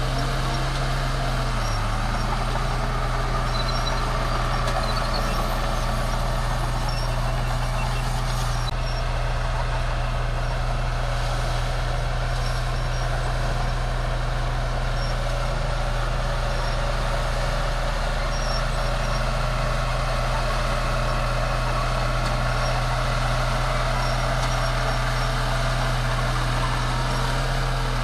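Bulldozer's diesel engine running steadily under load as it pushes soil, with a slight dip in engine pitch in the first couple of seconds.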